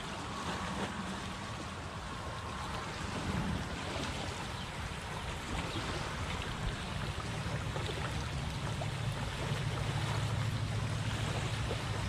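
Small waves lapping and washing onto a sandy shore, with wind on the microphone. A low steady hum grows stronger a little past halfway.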